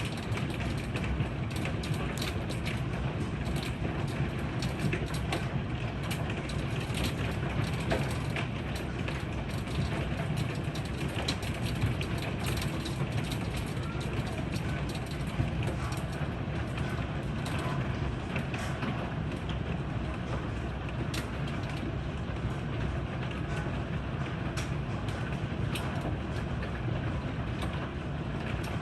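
Heavy rain with hail: a steady rush of rain, with many irregular sharp clicks of hailstones striking.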